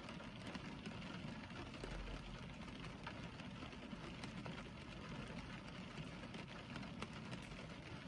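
Rain falling on a car, heard from inside the cabin: a steady patter with scattered single drops ticking on the glass and body.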